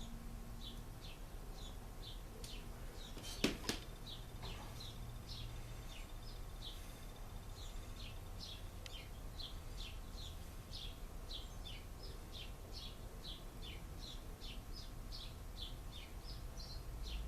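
A small bird chirping over and over, short high chirps that slide downward, about two to three a second, over a low steady hum. One sharp knock sounds about three and a half seconds in.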